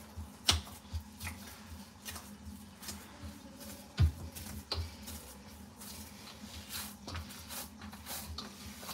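Hands kneading whole-wheat (atta) dough in a large steel tray: irregular soft thuds and slaps as the dough is pressed and folded, with one louder thump about four seconds in.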